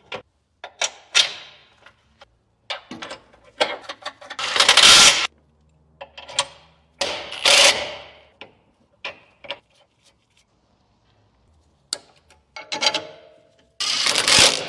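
Hand tools and metal steering parts being worked: scattered clicks and clanks, with three louder scraping, rattling bursts of about a second each.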